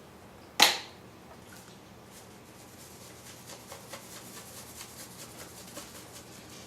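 A single sharp click about half a second in, then a long run of faint, rapid ticks and rattles from a spice shaker being shaken, sprinkling steak spice onto the steaks.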